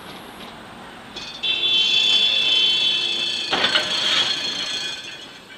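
Tram wheels squealing on the rails: a loud, high, steady squeal that starts suddenly just over a second in and fades near the end. A sharp knock comes about three and a half seconds in.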